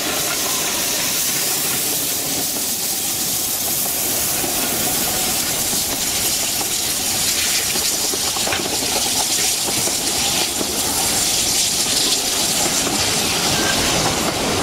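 Narrow-gauge steam locomotive passing close by, steam hissing steadily from low down on the engine, followed by its coaches rolling past on the rails.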